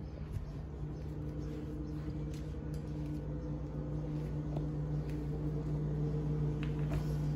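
A steady mechanical hum, with a few faint light clicks as a storm door is opened and handled.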